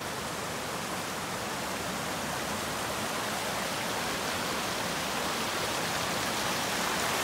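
Mountain creek rushing over rocks in a steady, even roar of whitewater, a little louder near the end.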